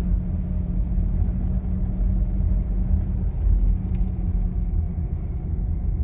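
Car driving along a road: steady low engine and tyre rumble with no change in pace.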